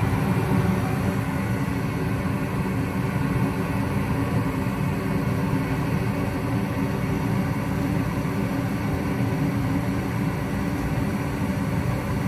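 Goodman gas furnace running steadily with all burners lit and staying on after a new hot surface igniter: a constant low rumble with a steady motor hum.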